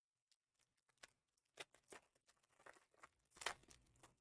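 Faint tearing and crinkling of a foil trading-card pack wrapper as it is ripped open, in several short rustles, the loudest about three and a half seconds in.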